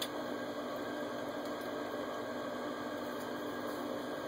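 Steady hiss with a low, even hum, broken only by a few faint clicks.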